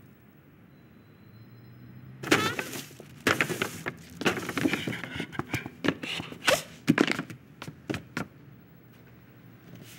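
A run of irregular clattering knocks and thuds, some with a short ringing tone, starting about two seconds in and stopping about eight seconds in.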